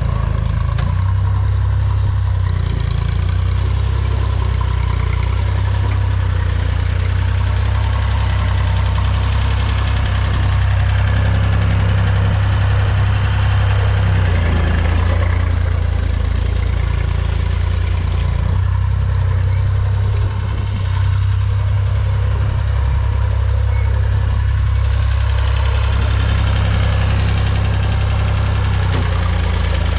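Massey Ferguson 150 tractor engine running steadily as it works a grader box, with its note shifting a few times as the load changes.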